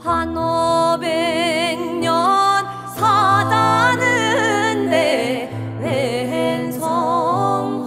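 Several voices singing a Korean folk song with vibrato, over piano accompaniment.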